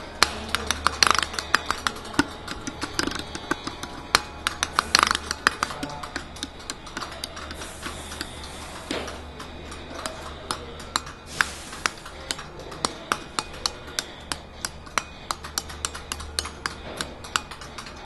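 A bank of clear-case plug-in electromechanical relays clicking as they switch on and off: a rapid, irregular patter of sharp ticks, densest and loudest in the first five seconds and sparser later, while the switching rate is being adjusted. A faint steady low hum runs underneath.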